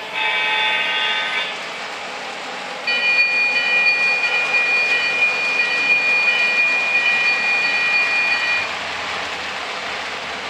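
Electronic horn of an O gauge model locomotive's sound system, a chord of several notes that cuts off about a second and a half in. A higher, steady tone follows from about three seconds in and holds for about six seconds. A steady rolling noise of model trains on three-rail track lies underneath.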